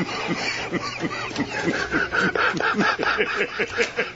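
News anchors laughing helplessly: several voices in a rapid string of short ha-ha pulses, about four or five a second.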